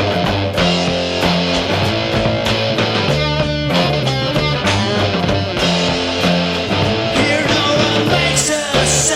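Rock trio playing: electric guitar, bass guitar and drums, with a steady beat and chords changing about every half second.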